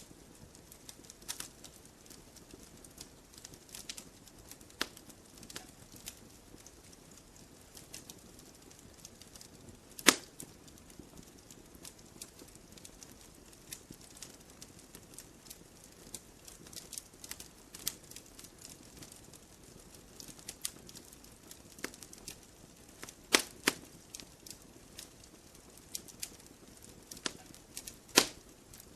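Campfire logs burning: irregular sharp snaps and pops over a soft hiss. The loudest pop comes about a third of the way in, then a quick pair and one more near the end.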